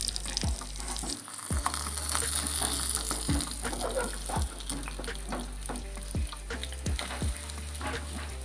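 Egg, onion and green chilli frying in hot oil in a nonstick saucepan, sizzling steadily, while a spoon is worked through the mixture with dull knocks and scrapes against the pan about once a second.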